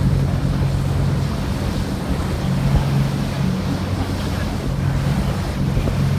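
A boat's engine running steadily under way, a low even drone, with water rushing past the hull and wind buffeting the microphone.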